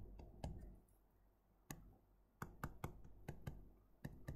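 Faint, irregular sharp clicks of a stylus tapping on a tablet's screen while writing by hand, with a few in quick succession about two and a half to three and a half seconds in.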